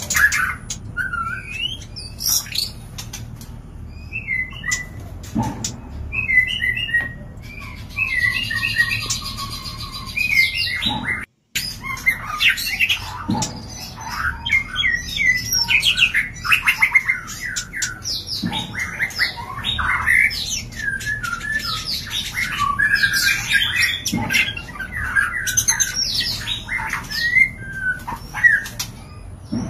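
White-rumped shama (murai batu) calling: a dense run of short varied chirps, whistles and quick trills, the excited calls of birds in mating condition. The sound cuts out briefly about eleven seconds in.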